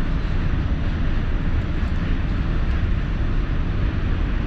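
New York City subway train running across a steel truss bridge: a steady, loud, low rumble of wheels on rail and the moving car.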